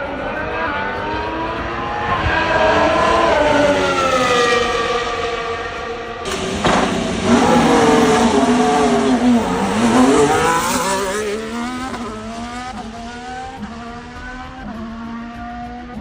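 A Formula 1 car's turbocharged V6 hybrid power unit at speed: the engine note climbs, swells as the car comes close, and falls in pitch as it passes, about two-thirds of the way through. Near the end the note rises again in short steps as the car shifts up through the gears.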